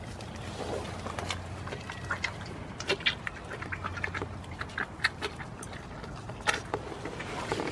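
Goats crunching and chewing carrot pieces close to the microphone: irregular sharp crunches, the loudest about three, five and six and a half seconds in.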